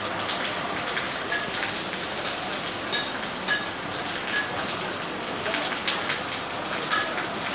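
Heavy rain falling steadily on a waterlogged street, a constant hiss with scattered short ticks of drops.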